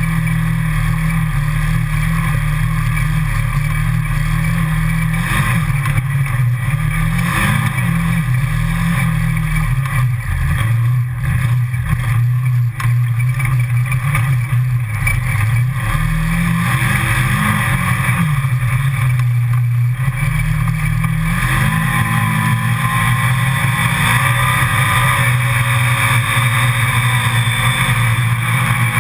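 Side-by-side utility vehicle's engine running under load, heard from the cab, its pitch dipping and rising several times with the throttle and terrain. About two-thirds of the way through the engine note climbs as the vehicle speeds up.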